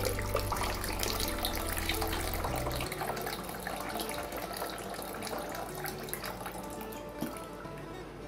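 Coconut water pouring and trickling from a freshly cracked coconut into a small bowl.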